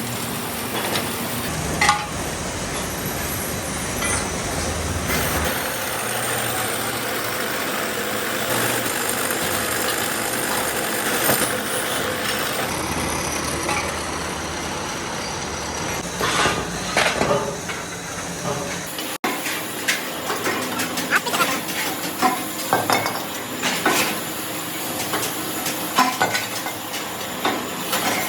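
Factory workshop noise: a steady machine running with a few clicks, then after an abrupt cut, frequent sharp metal clinks and knocks from parts being handled and worked.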